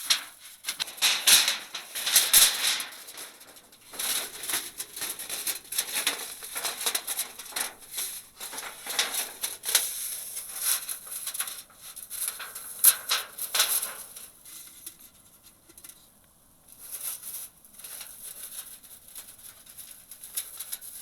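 Thin titanium panels of a breakdown wood stove being handled and fitted together: irregular light metallic clicks and rattles, busy at first and thinning out after about fourteen seconds.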